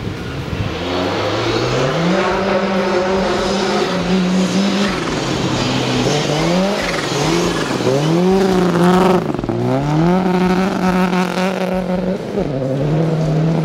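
Two rally cars, a Prodrive-built turbocharged 2.0 L Subaru Impreza and a Ford Focus RS, driven hard on a snowy road. The engine pitch climbs and drops again and again through gear changes and lifts, over a steady hiss.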